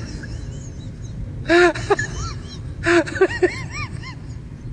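A young child's voice in two short bursts of whimpering, rising-and-falling cries, about one and a half seconds in and again about three seconds in, over a steady low background hum: a small boy starting to cry after being fooled with fake blood.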